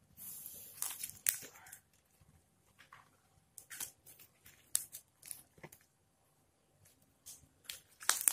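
Homemade shampoo-and-toothpaste slime being kneaded and pulled apart by hand, giving irregular short sticky crackles and squishes, busiest at the start and again near the end.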